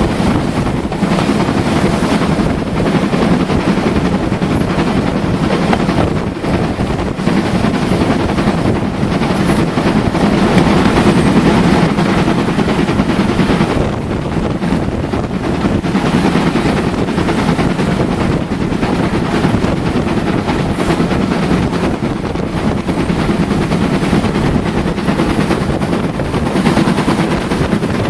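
A train running: a loud, steady rumble with a rapid, even beat that holds through the whole stretch.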